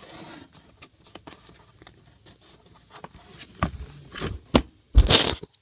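Handling noise: quiet rustles, clicks and scrapes of hands rummaging and the camera being moved, with a few sharper knocks in the last two seconds, the loudest a short thump near the end.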